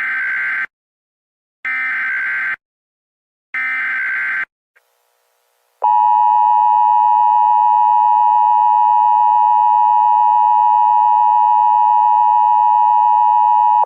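Emergency Alert System SAME header: three short bursts of buzzing digital data tones, then the two-tone EAS attention signal (853 and 960 Hz together) held steady for about eight seconds. It marks the start of a Child Abduction Emergency (Amber Alert) broadcast.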